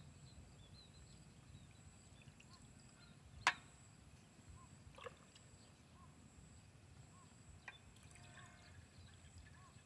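Quiet camp ambience with a faint low rumble. A single sharp click comes about three and a half seconds in, and two fainter clicks follow later. Soft short chirps repeat in the background.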